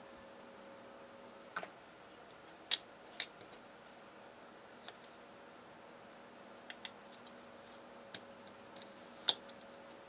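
Sparse sharp clicks and taps of small 1 mm styrene plastic sheet pieces being stacked, squared up and pressed together on a cutting mat: about eight separate ticks, two louder than the rest, one about three seconds in and one near the end. A faint steady hum sits underneath.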